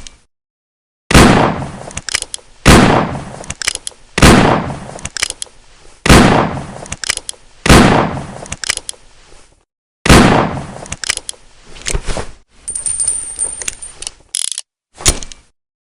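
Ruger Redhawk revolver firing six shots, each about one and a half to two seconds apart, each shot echoing as it fades. After the sixth shot come quieter metallic clicks and rattles of the revolver's action.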